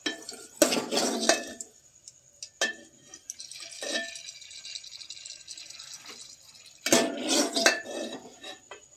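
Steel ladle clanking and scraping against an aluminium cooking pot as fried green chillies are scooped out of hot oil, in two bursts of clatter about a second in and near the end, with a few single knocks between. A faint oil sizzle comes through in the quieter middle.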